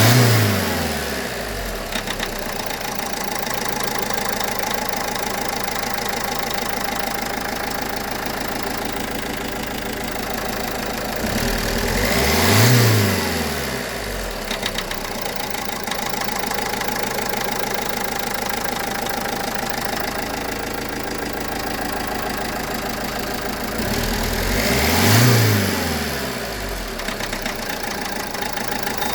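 Car engine idling and revved up three times, about twelve seconds apart, each time rising in pitch and falling back to idle. A few short clicks follow as the revs drop back: the knock that the owner hears after revving the engine.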